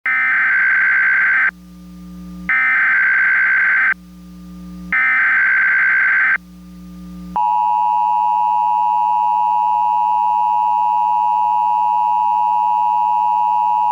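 Emergency Alert System tones: three short bursts of SAME header data, each about a second and a half long with about a second between them, then the steady two-tone attention signal starting about seven seconds in.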